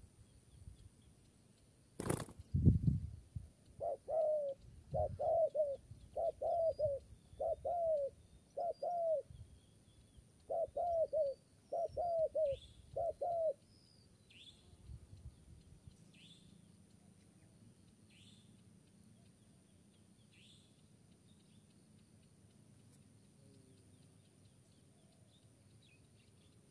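Spotted dove cooing in short phrases of two or three notes, about ten phrases in ten seconds, starting a couple of seconds after a single sharp knock. A smaller bird gives faint high, falling chirps about every two seconds in the second half.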